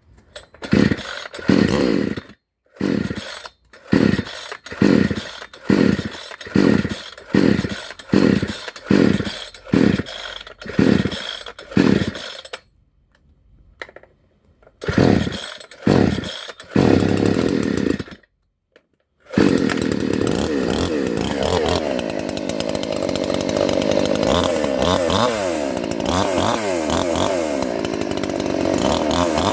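A 58 cc two-stroke chainsaw being started: a long series of quick pulls on the starter cord, with two short pauses. About two-thirds of the way in it catches and runs, its pitch rising and falling as the throttle is worked.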